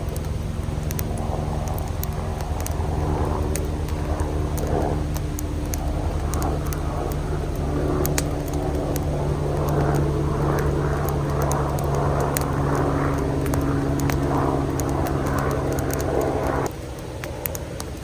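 Camp stove burner running steadily under a pot of water, with a rushing, crackly layer building over it, then shut off abruptly near the end.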